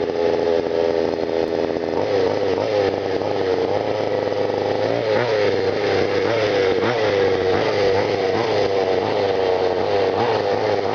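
Small two-stroke petrol engine of a large-scale FG radio-controlled car running, its pitch dipping and coming back up again and again with throttle blips, the intake sound through its air filter prominent.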